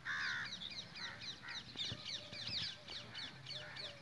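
Chorus of small birds chirping: many quick, high, falling chirps repeating throughout. One loud, harsh call comes in the first half second.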